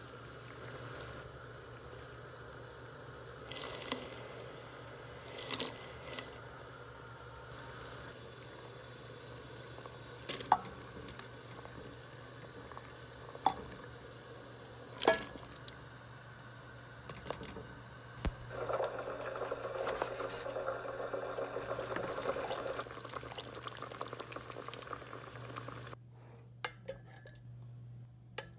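Kitchen work: dishes, glass and utensils clinking and knocking a handful of times over a steady low hum, with a stretch of running or pouring liquid in the second half that stops suddenly.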